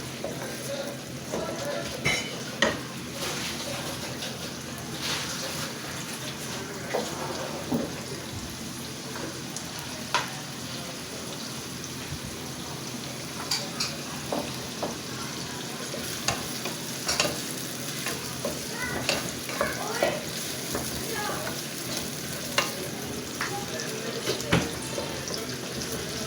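Sliced onions and green chillies sizzling in hot oil in a pan, with a spoon stirring and scraping against the pan and clicking now and then.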